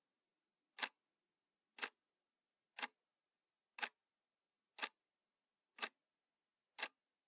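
Quiet, sharp ticks repeating steadily about once a second.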